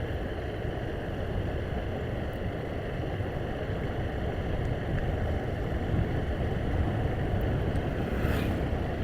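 Motorcycle running steadily while riding, with wind rushing over the microphone.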